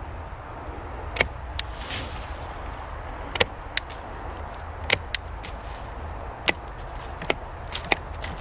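Small LÖWE anvil pruner cutting through a thicker woody branch: a series of about ten sharp snaps, irregularly spaced, as the blade bites down onto the anvil, against a steady low outdoor background.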